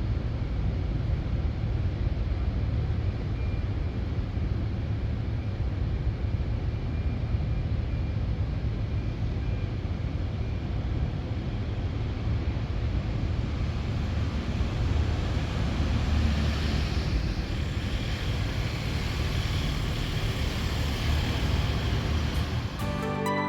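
Steady low rumble of a ferry under way, with wind buffeting the microphone and the rush of water. Music comes in right at the end.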